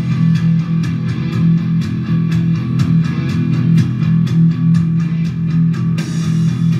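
Loud guitar-driven rock music with a steady drum beat, played over a stadium sound system, with a sharp accent about six seconds in.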